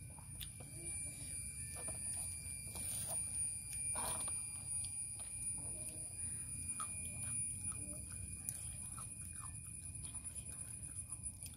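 Soft chewing and small handling clicks of someone eating by hand, over a steady high-pitched whine and a low background rumble.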